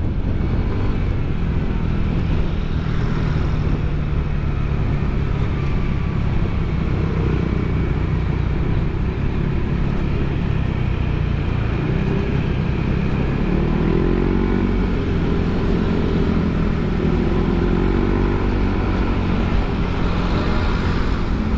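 Yamaha NMAX 155 scooter's single-cylinder engine running through an aftermarket ROB1 Racing exhaust while riding: a steady low drone whose pitch rises and falls a few times in the second half.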